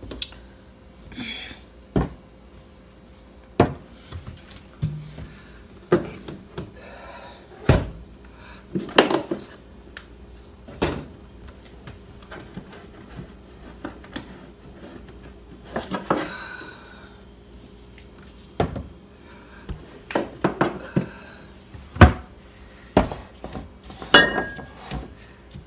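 Plastic tubs and glassware being handled and set down on a countertop: about a dozen irregular clicks and knocks a second or more apart, with a brief rustle about sixteen seconds in.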